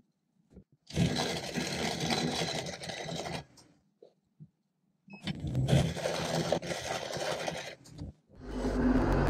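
Wood lathe running with an epoxy resin and vine wood disc mounted on it, in two stretches of a few seconds each split by silent cuts. A louder, steadier running sound starts near the end.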